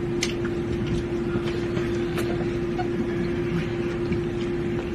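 Steady background hum: a constant low tone over an even hiss, with a couple of faint clicks.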